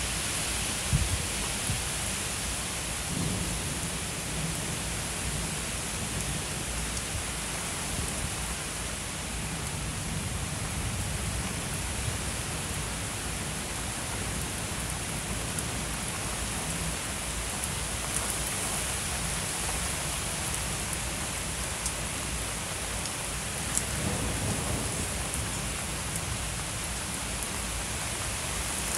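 Heavy thunderstorm rain falling steadily, with low rumbles of thunder underneath.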